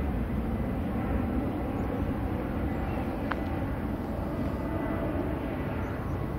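Distant rumble of a Boeing 787-9's GEnx turbofan engines as the airliner slows on the runway after landing and turns off toward the taxiway, easing slightly, with one short click about three seconds in.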